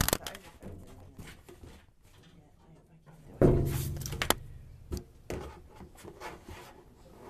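Handling noise as a furnace filter is worked into the furnace: faint rustling, then rubbing and scraping about halfway through, with a few sharp knocks.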